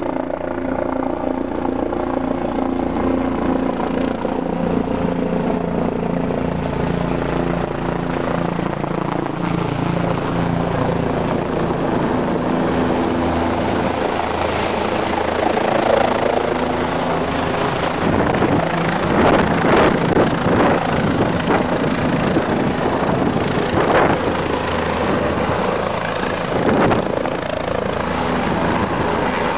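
Police helicopter flying in and passing low overhead, then coming down over the helipad. Its engine and rotor are steady tones at first and grow into a loud, rhythmic rotor thudding in the second half.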